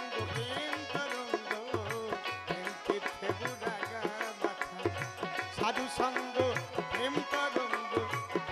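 Instrumental interlude of a Bengali baul folk song: a dotara and a melody line with gliding, bending notes, over a steady repeating hand-drum rhythm.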